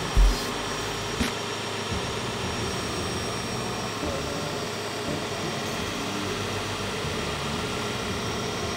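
Belt grinder running steadily while a knife blade is held against the belt to sharpen its edge. There is a brief low thump just after the start.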